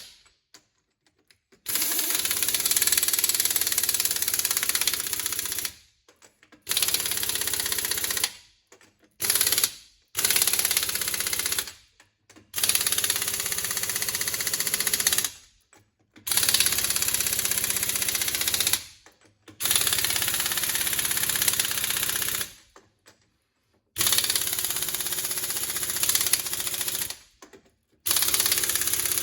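Pneumatic impact wrench running wheel nuts onto a truck's front wheel hub in about nine rattling bursts of one to four seconds, each stopping abruptly, with short pauses between them.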